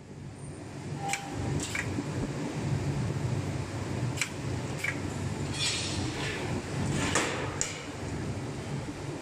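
Welding machine's electrode working the seam between a stainless steel tank's end cover and its body: a steady low hum with sharp cracks of individual welds at uneven intervals, about seven of them.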